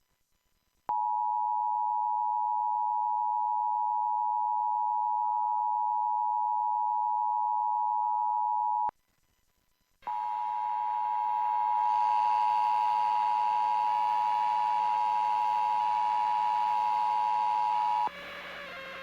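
Emergency Alert System attention signal: the harsh two-tone alarm held steady for about eight seconds, stopping, then sounding again for another eight seconds over a background hiss before cutting off near the end.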